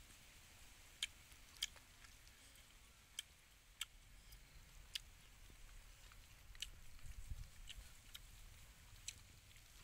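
Faint eating sounds from a person eating with chopsticks from a plate: a few sharp, irregularly spaced clicks and chewing.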